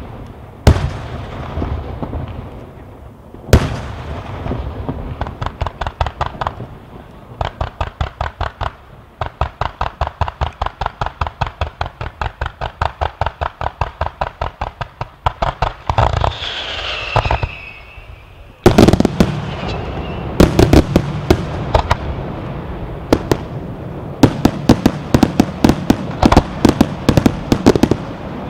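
Fireworks firing. Two loud bangs come first, then a long, even run of reports at about three a second, with a falling whistle about sixteen seconds in. At about nineteen seconds a loud bang sets off a denser, faster barrage of reports.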